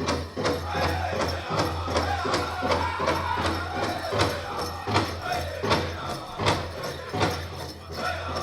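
Powwow drum group: a large drum struck in a steady, even beat with the singers' voices chanting over it.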